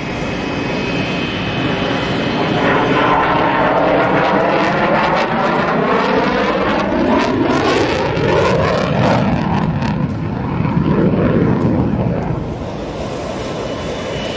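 F-16 fighter jet flying past with its afterburner lit: a loud, steady jet roar with a sweeping tone that falls in pitch through the middle of the pass. The roar eases slightly near the end.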